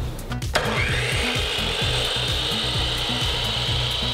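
12-inch miter saw switched on with a click about half a second in; its motor whines up to full speed, then runs steadily with the blade spinning free, not yet cutting the board.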